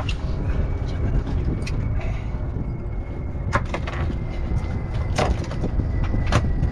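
Steady low rumble of a fishing boat at sea, with a few sharp knocks about three and a half, five and six and a half seconds in.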